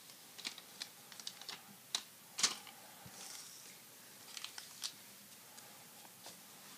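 Trading cards and foil card packs handled on a wooden table: a string of small sharp clicks and taps, the loudest about two and a half seconds in, followed by a brief soft crinkle of wrapper and another quick cluster of taps.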